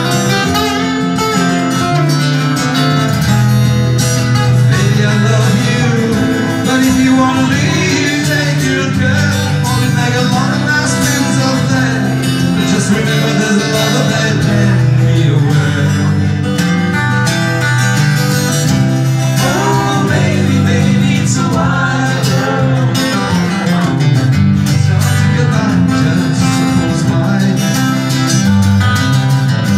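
Live acoustic music: an acoustic guitar played with singing, a pop-folk song performed in a small room.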